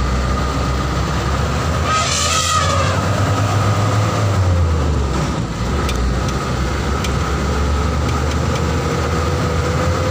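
A vehicle's engine and cab rumble, heard from inside the cab as it drives along a road. Its engine note rises slowly over the second half as it picks up speed. A short hissing burst comes about two seconds in.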